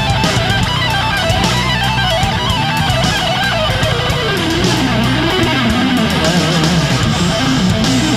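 Background rock music led by electric guitar, at a steady loud level.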